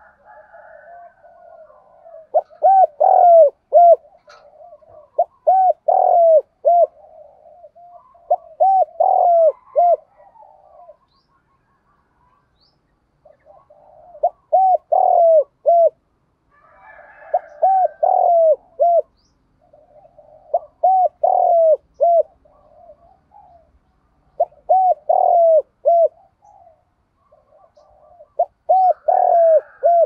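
Spotted dove cooing: repeated phrases of four or five quick coos, about one phrase every three seconds, with a longer pause near the middle and softer murmured notes between phrases.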